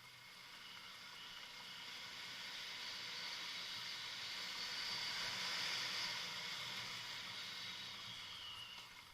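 Motorcycle engine hum under a hiss of tyres or gravel that swells to its loudest just past the middle and then fades, as of a bike going past.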